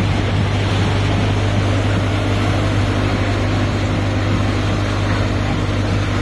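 Mahindra Arjun 605 tractor's diesel engine running steadily under load, powering a tractor-mounted mini harvester combine, with a strong steady low hum.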